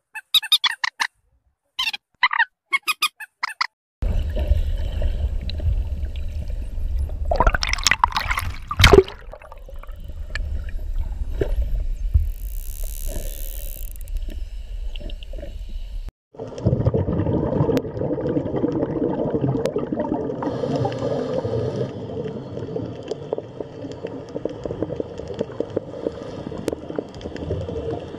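A few quick bird squawks, then steady rumbling underwater noise with one whale call rising and falling about 8 seconds in. About 16 seconds in the sound cuts sharply to a steady underwater bubbling and gurgling.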